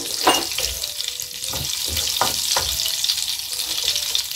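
Cumin seeds sizzling in hot butter and oil in a nonstick pan, with a steady high hiss. A wooden spatula stirs and knocks against the pan a few times.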